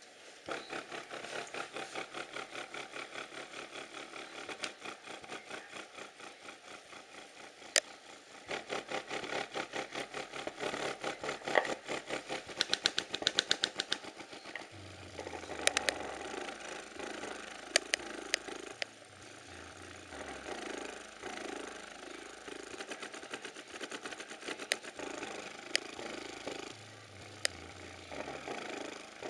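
Old-school 10-inch Rockford Fosgate Punch subwoofer playing bass-heavy music on 300 W RMS. It starts as a fast, even pulsing and moves on to longer bass notes with sharp clicks.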